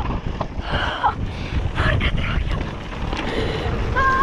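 Wind buffeting the camera microphone and mountain-bike tyres running over a dusty dirt trail during a fast downhill descent, a steady low rumble. A short high-pitched squeal about four seconds in.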